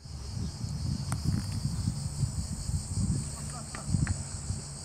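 A steady, high, shrill drone of insects buzzing in the surrounding trees, under a loud, uneven low rumble on the microphone.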